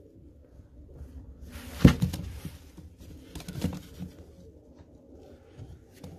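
Domestic pigeons in a nest box, heard faintly and low. A sharp knock comes about two seconds in, and a softer one a couple of seconds later.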